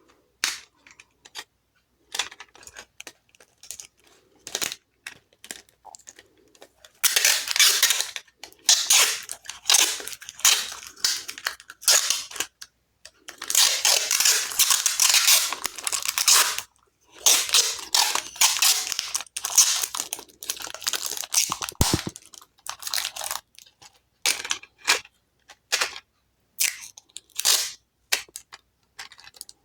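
Plastic computer-mouse parts clicking and knocking as they are handled and fitted back together, with three long stretches of dense crackling, rasping noise.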